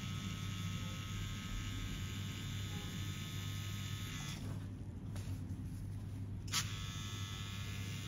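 Cartridge tattoo machine buzzing steadily as its needle lines the tattoo into skin. A little past halfway its higher whine drops away for about two seconds under the continuing hum, then comes back with a sharp click.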